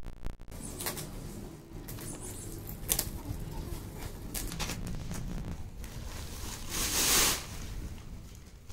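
Scissors snipping through the top of a plastic sack, with sharp snips and crinkling of the plastic, then a loud rustle about seven seconds in as the sack is pulled off the folded green shade net inside.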